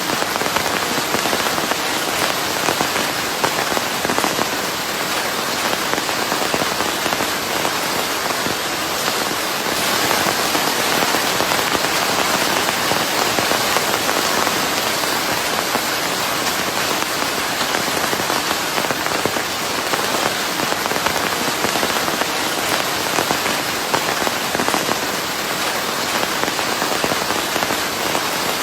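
Steady rain falling on a surface: a dense, even hiss full of small drop ticks, blended with white noise, holding the same level throughout.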